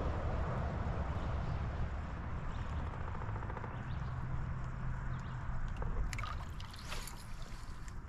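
Water lapping and gurgling against a bass boat's hull over a steady low rumble, with a few sharp clicks and ticks about six to seven seconds in.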